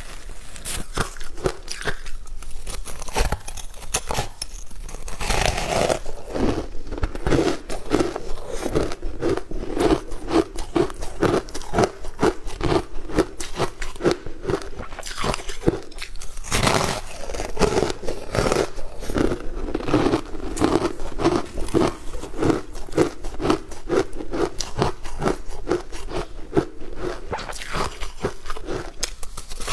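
Close-miked chewing of a crunchy sweet food: a fast, continuous run of crisp crunches in a steady chewing rhythm.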